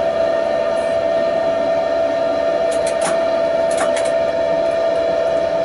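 Tatra T6A5 tram running, heard from the driver's cab: a steady whine over the running noise. A few sharp clicks come about three to four seconds in.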